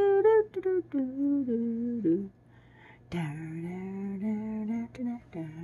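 Humming of a slow tune: held notes with small slides between them, one phrase, a short pause a little past two seconds in, then a lower phrase that carries on.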